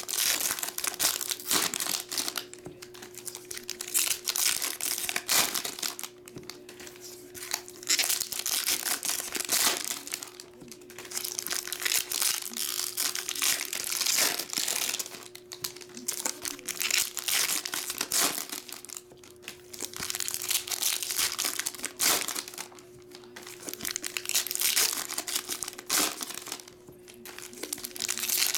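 Foil wrappers of Topps baseball-card packs crinkling and tearing as the packs are ripped open one after another. The sound comes in repeated bursts of a second or two, with short pauses between.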